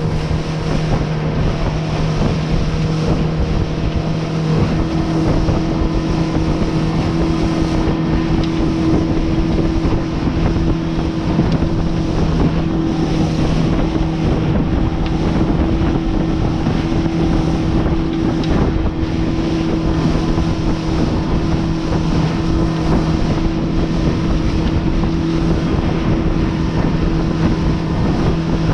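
Motorboat engine running at a steady speed, its even hum mixed with the rush of wind buffeting the microphone.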